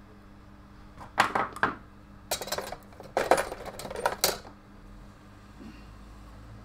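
Small tools and metal parts clinking and clattering against a wooden workbench as they are handled, in a short burst about a second in and a longer run from about two to four seconds.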